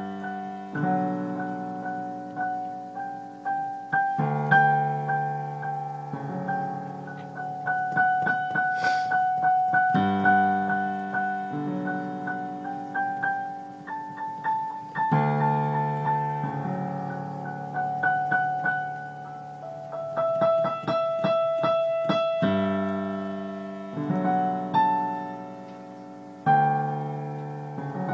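Solo piano playing a minuet: a melody over lower chords, each note struck and dying away.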